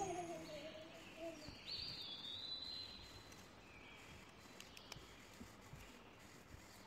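The tail of background music fades out in the first second or so. Then it is faint and quiet, with a few short high chirps and a few light clicks.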